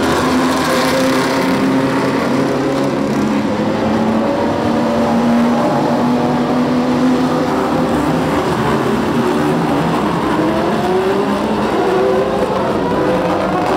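Engines of GT racing cars running loudly as the cars pass one after another at low pit-lane speed. Several engine notes overlap, mostly holding steady pitches, with notes rising about ten seconds in.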